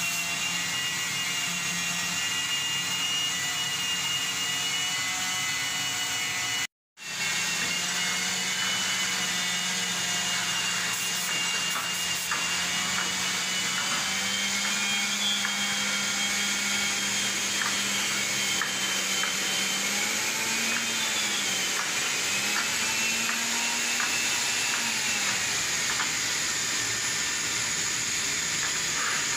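Steady hiss of an oxygen-LPG cutting torch cutting steel plate, over a steady hum whose pitch wavers now and then. The sound drops out completely for a moment about seven seconds in.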